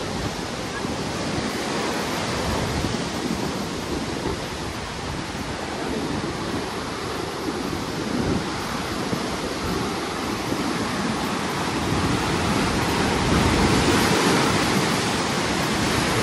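Koshi River water rushing steadily through the barrage's open sluice gates, a continuous roar of flowing water that grows a little louder near the end.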